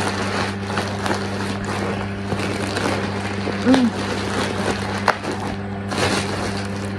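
Plastic shipping package rustling and crinkling as it is handled and opened, with a sharp click about five seconds in, over a steady low hum.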